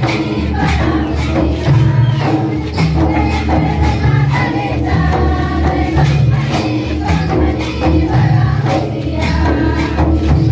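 Karma dance song of the Oraon community: a group singing together over percussion that keeps a steady, repeating beat with jingling strokes, loud throughout.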